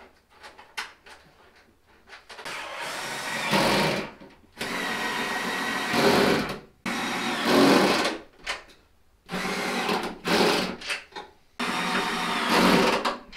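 Small cordless power tool running in five bursts of one to two seconds each, its pitch wavering as it runs the bolts that hold the wing uprights to the carbon fiber trunk lid. Light handling clicks come before the first burst.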